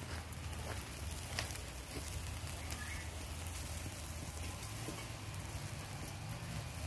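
Open wood fire crackling and hissing under a whole pig roasting on a spit, with a few sharp pops.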